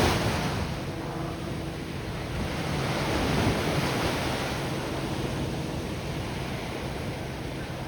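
Ocean waves breaking and washing onto the shore, one surge swelling about three seconds in and slowly fading.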